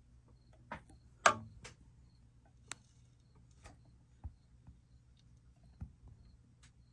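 A scattering of irregular sharp clicks and knocks, like objects being handled, the loudest about a second in, over a faint low hum.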